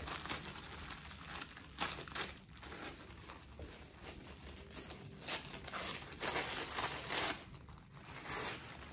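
White paper wrapping crinkling and rustling in irregular bursts as it is handled and opened around a wrapped handbag, loudest about two seconds in and again between about five and seven and a half seconds.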